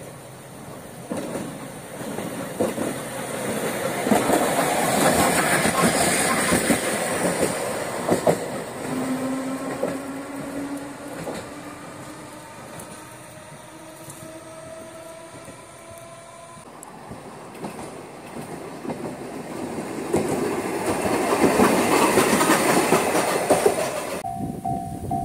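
A Manyosen tram passes on the track, its wheels clattering over the rail joints, then pulls away with an electric motor whine that rises in pitch in steps. A second tram clatters past, and near the end a level-crossing bell starts ringing in a steady pulse.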